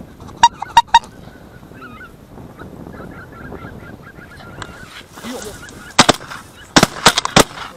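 Greater white-fronted geese honking: three loud calls near the start, then softer chatter from the flock. About six seconds in comes a rapid volley of several shotgun shots fired at the flock.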